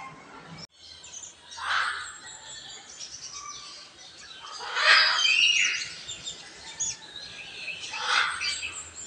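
Blue-and-yellow macaw giving three loud, harsh squawks a few seconds apart, with smaller birds chirping faintly behind.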